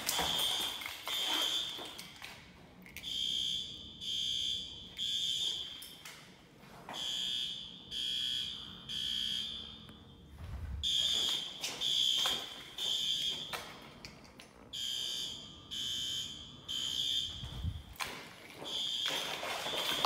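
System Sensor SpectrAlert Advance fire alarm horns sounding the temporal-three evacuation signal. Three short horn blasts are followed by a pause, and the pattern repeats about every four seconds.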